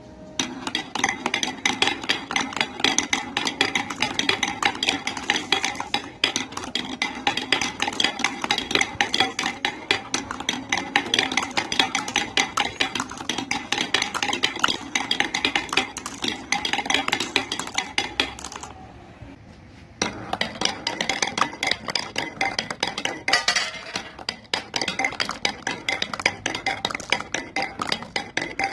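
Marbles rolling and clacking along a marble-run track of building blocks and wood, a dense stream of rapid clicks and clinks. About two-thirds of the way through the clicking thins to a brief lull, then starts again as dense as before.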